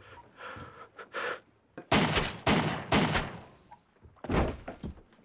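Handgun shots in a small enclosed cabin: three in quick succession, about half a second apart, then a fourth about a second later, each one sharp with a short decaying ring.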